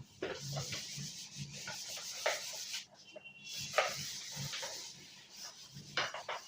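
Light rubbing and rustling with scattered small taps and clicks, as of objects being handled.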